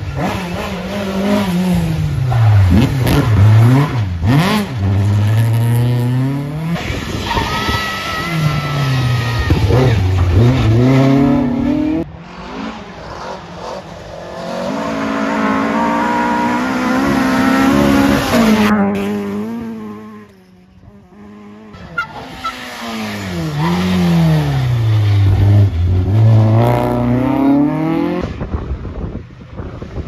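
Classic rally cars at full throttle passing one after another, their engines revving hard. The pitch drops and climbs again repeatedly as the drivers lift off, change gear and accelerate away.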